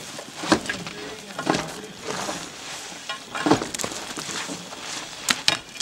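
Ice being chipped with a long pole: several sharp strikes of the pole on packed ice, a second or two apart, with two in quick succession near the end.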